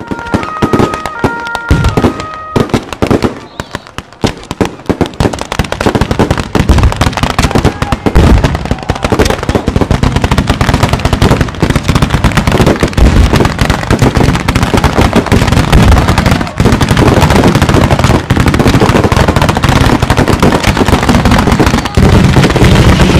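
A short run of steady stepped tones, then fireworks going off at ground level: dense, rapid crackling and popping with bangs, building over the first several seconds and running on thickly.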